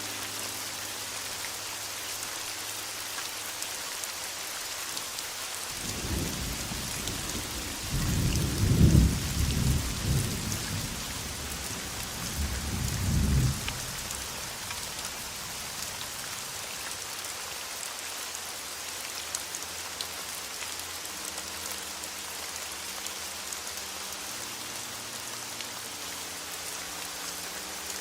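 Heavy rain falling steadily, with a rumble of thunder starting about six seconds in that peaks twice, loudest around nine seconds and again near thirteen, before fading.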